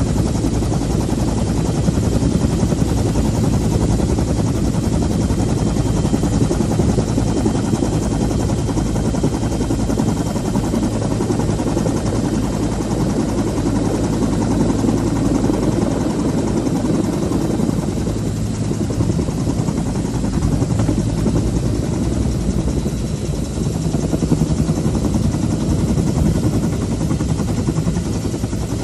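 Helicopter running steadily with its rotor and engine loud, heard from the open cabin door as it comes in to land.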